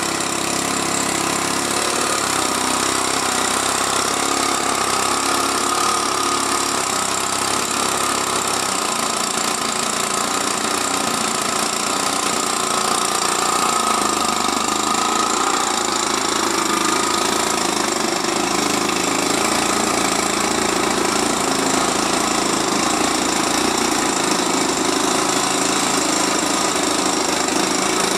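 XYZ 53 cc two-cylinder boxer gasoline engine of a large model aircraft running steadily, its exhaust routed through a muffler to twin Keleo exhausts. Its tone shifts slightly about nine seconds in.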